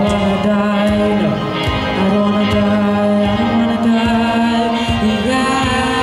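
A boy singing long held notes into a microphone over an electronic accompaniment played on tablets and a keyboard, with a steady beat.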